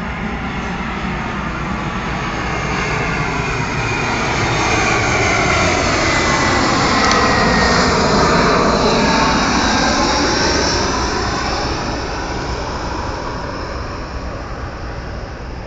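Airliner on its landing approach passing low overhead. Its engine noise swells to a peak about halfway through and then fades, with the whine dropping in pitch as it goes by.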